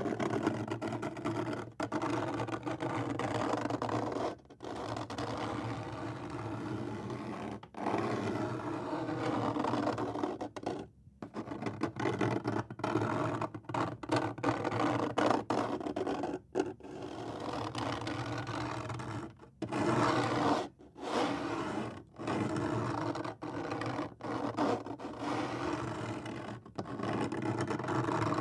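Fingernails scraping across a semi-smooth wooden surface in a series of strokes, each lasting one to a few seconds, with short breaks between them.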